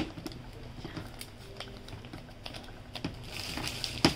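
Light, irregular clicks and taps of plastic ink bottles being handled and set down beside a printer's refill tanks, with a sharper click at the start and another near the end, over a faint low steady hum.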